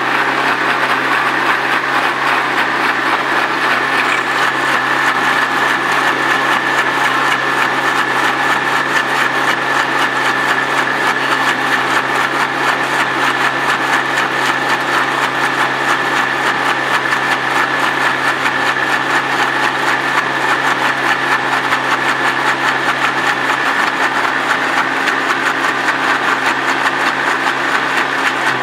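Countertop blender motor running steadily at full speed, puréeing a wet marinade of onions, spring onions, thyme and oil: a constant hum with a held high whine.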